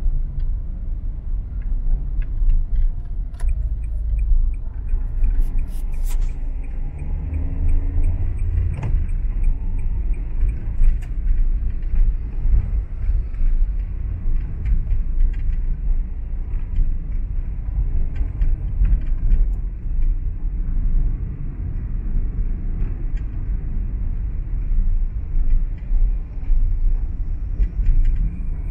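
A car driving along a road: a steady low rumble of engine and tyres, with a few faint clicks a few seconds in.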